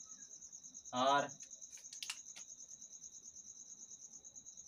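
A cricket trilling steadily in the background, a high, continuous, rapidly pulsing chirr. A brief spoken syllable cuts in about a second in, and a few faint clicks come around two seconds.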